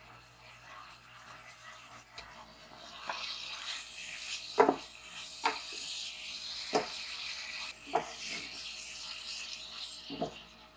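Steady rubbing noise that sets in about three seconds in, with several short knocks, the loudest near the middle.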